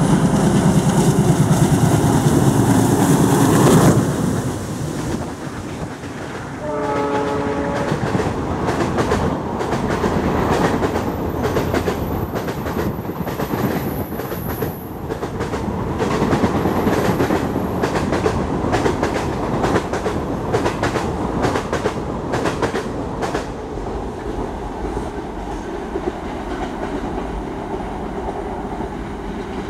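A diesel locomotive's engine runs loud as it passes close by for about the first four seconds. A brief horn sounds a few seconds later. Then the wheels of the passenger coaches clatter over the rail joints in a steady clickety-clack that fades as the train moves away.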